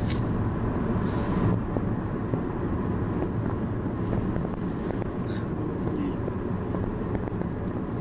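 Steady engine and tyre noise of a moving car, heard from inside the cabin.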